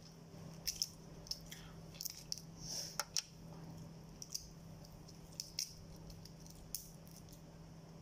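Faint, scattered crackles and small clicks as a cooked tiger prawn's shell is peeled apart by hand, over a low steady hum.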